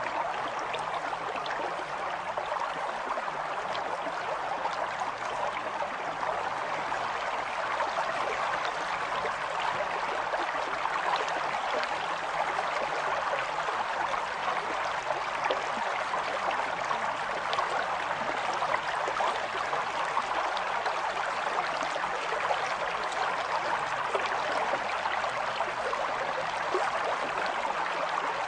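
Steady rushing, trickling noise like running water, even in level throughout.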